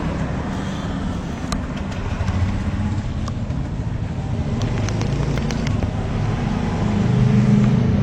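Motorcycle engine running steadily amid road traffic, its note swelling a little about seven seconds in.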